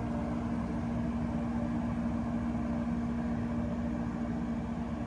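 Steady machinery drone of a 30-ton Addison rooftop HVAC unit running: a low rumble with a constant hum.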